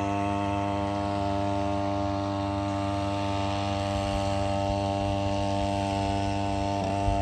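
Small outboard motor on an inflatable boat, a steady low buzz that holds one pitch.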